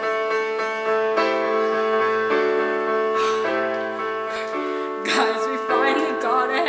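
Slow, sustained piano chords played live in a theatre, the chord changing about once a second. A single voice comes in over the piano about five seconds in.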